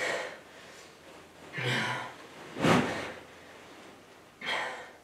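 A man breathing heavily: four sharp, loud breaths or gasps, spaced about a second apart.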